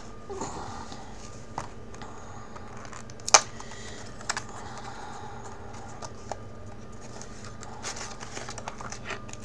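Scattered small clicks and light scraping of small parts being handled on a tabletop, with one sharp click about three and a half seconds in, over a faint steady hum.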